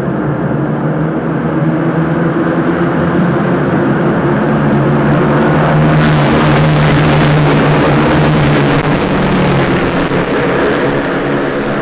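Cub Prix racing motorcycles' engines running hard at high, fairly steady revs. The sound gets louder and harsher from about six seconds in, easing back near nine seconds.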